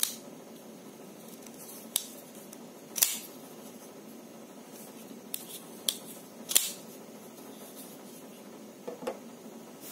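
Sanrenmu 9011 folding knife being worked by hand: the blade and lock click sharply as it is swung open and locks, about seven short clicks at irregular times, the loudest about three seconds in and again past six seconds, with a softer pair near the end.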